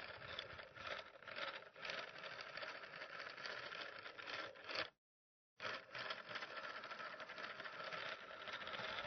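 Antique rotary telephone dial being turned and whirring back with a fast clicking rattle. It comes in two runs split by a brief silence about five seconds in, and the first run ends in a sharper click.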